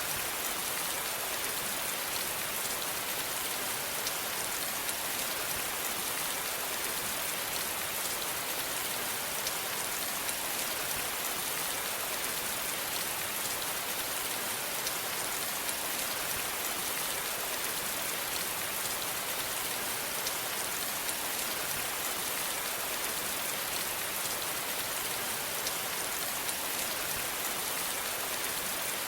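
Steady rain falling on a surface, an even hiss with the patter of small drops.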